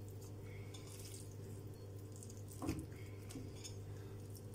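Soft, wet handling sounds of raw minced meat being pressed by hand into a food chopper bowl, with a light knock a little before three seconds in, over a steady low hum.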